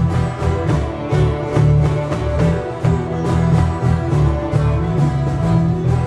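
Live Celtic band music: several fiddles playing a tune together over acoustic guitar and bass guitar, with a steady rhythm.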